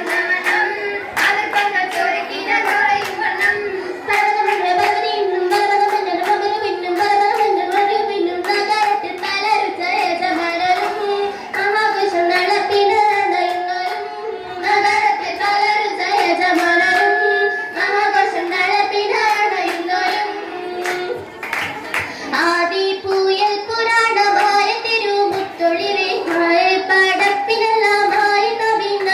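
A group of girls singing a song together with rhythmic hand-clapping, the claps sharp and closely spaced under the melody, with a brief break in the singing about two-thirds of the way through.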